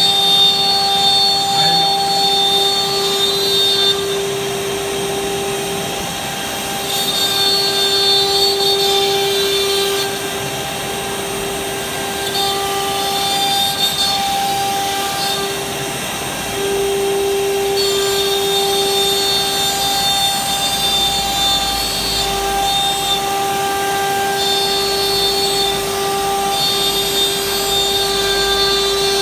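CNC router spindle running with a steady pitched whine; a higher-pitched layer and the overall loudness drop out and return in stretches of a few seconds as the machine works.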